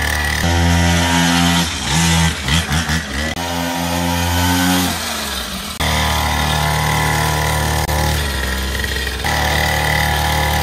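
Small two-stroke petrol engine of a children's mini dirt bike running as it is ridden slowly, its note stepping up and down several times as the throttle is opened and eased, with a wavering stretch about two to three seconds in.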